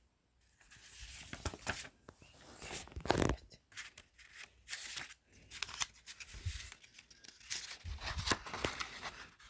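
Handling noise: scattered clicks, knocks and rustles as something is moved and turned over, with one louder knock about three seconds in.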